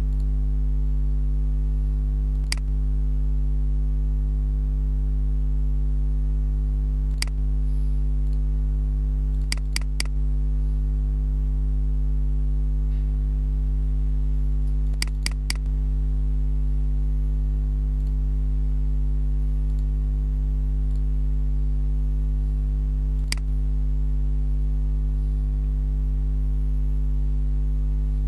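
Steady low electrical hum with computer mouse clicks over it: single clicks, and two quick runs of three clicks.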